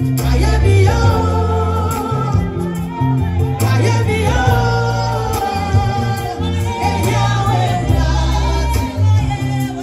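Ghanaian gospel song: voices sing long held lines over a band with a strong bass line.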